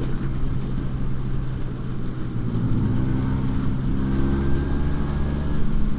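1985 Vespa P150S scooter's two-stroke single-cylinder engine running while riding, its note rising a little for a couple of seconds around the middle. The rider says it stutters ('brebet') and pulls poorly, which he puts down to a dirty carburettor he has not cleaned.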